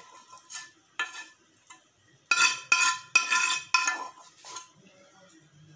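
A spoon scraping and knocking against a frying pan as cooked chicken is emptied into a glass bowl, each stroke ringing briefly. A quick run of loud knocks comes between about two and four seconds in, with quieter scrapes around it.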